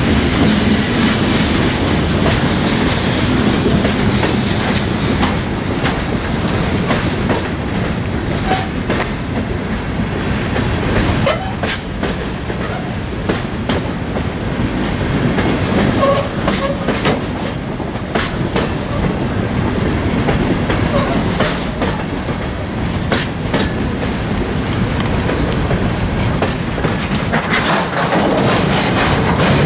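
Freight train cars, boxcars and covered hoppers, rolling past: a steady rumble of steel wheels on rail with repeated clicking over the rail joints and a few brief wheel squeaks around the middle.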